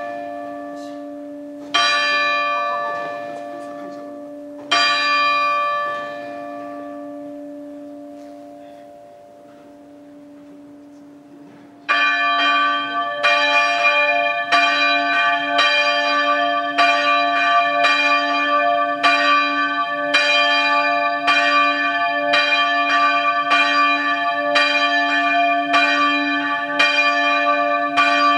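Catholic church bell tolling the 6 p.m. bell. Two single strikes a few seconds apart are each left to ring out and fade. After a pause of several seconds, about twelve seconds in, it starts ringing quickly and steadily, about three strikes every two seconds, under a continuous low hum.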